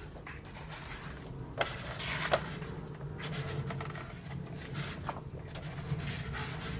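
Paper booklet pages being handled and turned, a few short rustles and soft clicks over a steady low hum.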